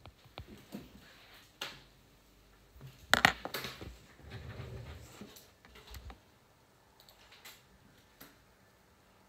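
Light clicks and taps of a stylus on an iPad's glass screen during handwriting, with a sharper clatter about three seconds in.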